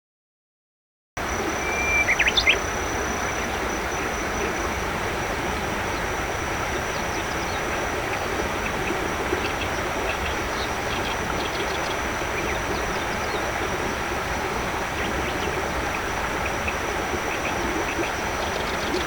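Steady, dense outdoor background noise with a thin, high, steady whine over it. A short bird call and a few clicks come about two seconds in.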